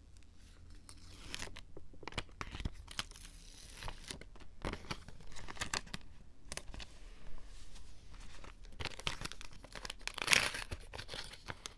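Paper rustling, crinkling and tearing as a paper packet is opened and a tape-covered paper cutout is peeled free, in many short crackles with the loudest tearing near the end.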